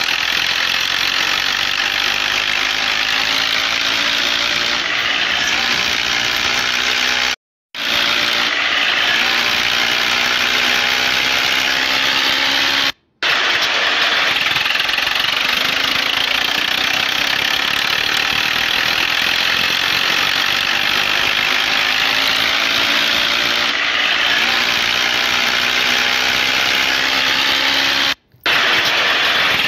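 Tractor engine sound running steadily, its pitch slowly rising and falling, broken by three abrupt short cuts to silence.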